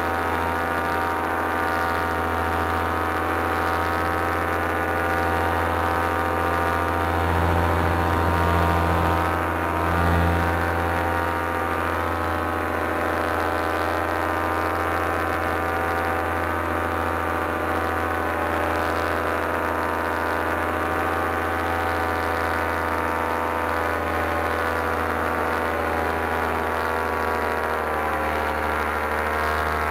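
Paramotor engine and propeller running steadily at flight power, with a brief swell in power about eight to ten seconds in.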